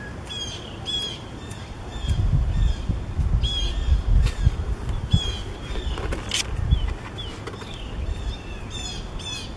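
Birds calling over and over in short chirps and quick trills, with wind gusting on the microphone as a low rumble from about two seconds in until about seven seconds in.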